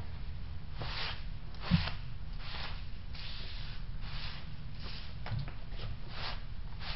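A cloth rag wiped back and forth across a freshly planed steel plate: a series of short swishes, about ten, with one thump just under two seconds in.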